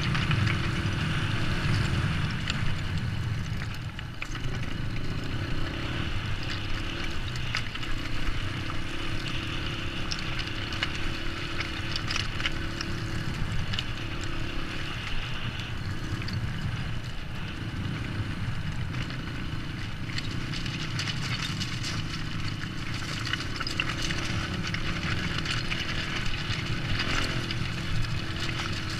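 Honda CRF dirt bike's single-cylinder four-stroke engine running at low speed, its note rising and falling with small throttle changes as the bike picks its way over loose rocks, with scattered clicks.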